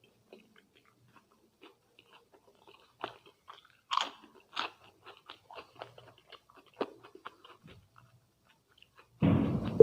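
Close-miked chewing with crisp crunches, the bites of potato chips eaten with rajma and rice: scattered crunches with a few louder bites about four seconds in. Near the end comes a much louder, short burst of noise.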